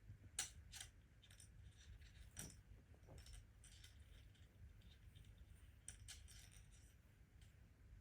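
Faint, irregular sharp clicks and light taps, about a dozen, the loudest about half a second in and again near two and a half seconds, over a low steady hum.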